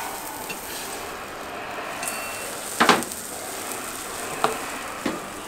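Jianbing crepe sizzling on a hot round griddle as a steady hiss. Metal spatulas working under the crepe give a few sharp clicks against the griddle, the loudest a little under three seconds in and two smaller ones near the end.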